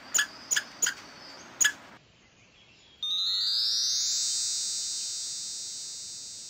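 Squirrel chirping: four short, sharp chirps in the first two seconds. About three seconds in comes a shimmering synthesizer chord, built up by a quick rising run of notes, that is held and slowly fades.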